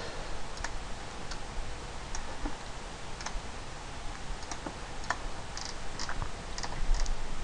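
Irregular clicks of a computer mouse and keyboard, a dozen or so short taps at uneven intervals, over a steady low microphone hiss.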